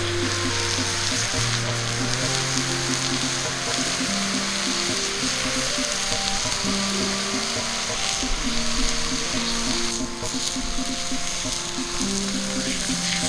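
Steak frying with a steady sizzle.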